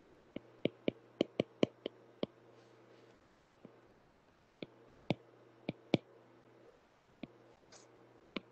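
Stylus tip tapping and clicking on a tablet's glass screen during handwriting. A quick run of sharp clicks comes in the first couple of seconds, then scattered single clicks, over a faint low hum.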